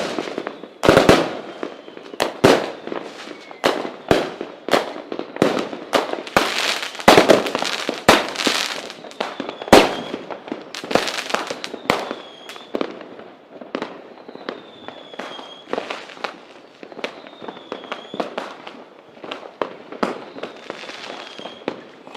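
Fireworks going off: a rapid string of sharp bangs and crackling, heaviest in the first half and thinning out later, with faint short falling whistles from about halfway on.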